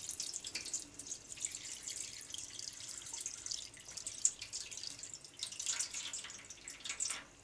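Murky rinse water poured off a small plastic bucket of tubifex worms, trickling and splashing into a stainless steel sink. The pour stops near the end.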